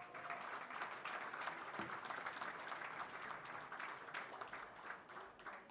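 Audience applauding, the clapping thinning out near the end.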